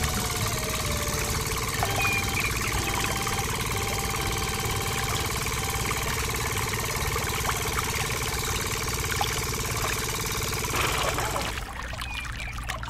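A small motor in a miniature model diesel engine runs with a steady buzz, belt-driving a toy water pump, while water pours into a small pond. The motor cuts out about eleven and a half seconds in.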